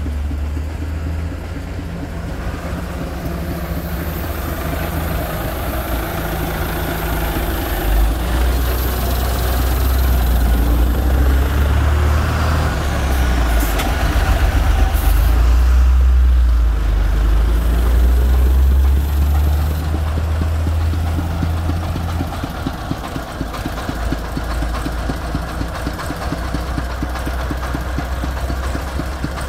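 Mitsubishi forklift's engine running with a low rumble, louder for several seconds in the middle as it is worked harder, then easing back.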